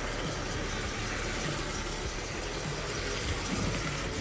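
Brass HO-scale 0-6-0 switcher model locomotive running along the layout's track: a steady whir of its small electric motor and gears, with wheel noise on the rails.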